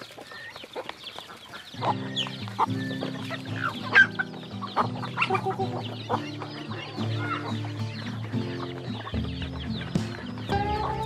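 Chickens clucking with many short, high chirps, over background music that comes in about two seconds in.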